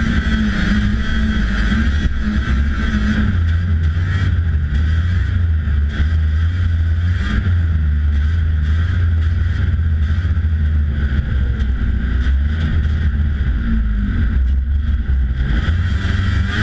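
1992 Polaris Indy Lite 340 snowmobile's two-stroke engine running steadily while the sled rides along a snowy trail, heard from a camera on the hood.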